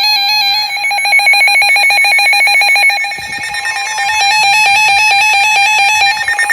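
NOAA weather radios sounding their alert alarm for an incoming warning: several layered electronic tones with a rapid, even beeping pulse. A steady higher tone joins about four seconds in, typical of the weather radio's 1050 Hz warning alarm tone.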